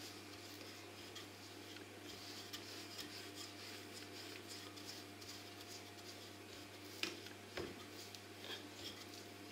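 Faint rubbing of a wooden rolling pin rolled back and forth over laminated butter dough, with a few light knocks near the end. A steady low hum runs underneath.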